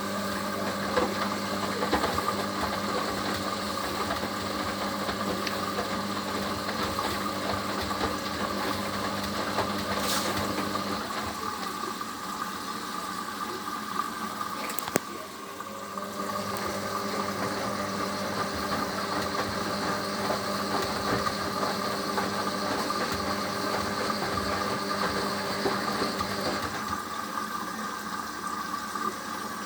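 Hoover HLW585DC washer dryer filling with water for a rinse, its drum motor running with a steady mechanical hum. A click comes about halfway through, and part of the hum stops a few seconds before the end.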